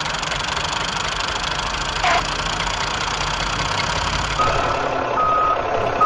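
Heavy machine engine running steadily, with two short high beeps near the end like a reversing alarm; the sound cuts in and out abruptly.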